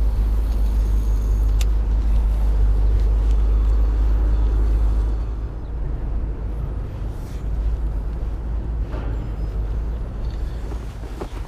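Wind buffeting the microphone: a steady low rumble that eases about five seconds in, with a few faint clicks.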